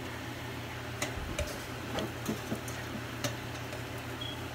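An egg cooking in a saucepan of water at a rolling boil, with irregular light ticks, a few a second, over a low steady hum.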